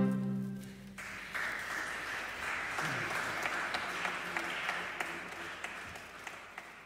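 The song's final held chord dies away, and about a second in a small audience breaks into applause that gradually thins out.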